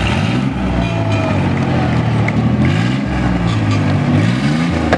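Pickup truck engine running at low speed and being revved, its pitch rising and falling several times.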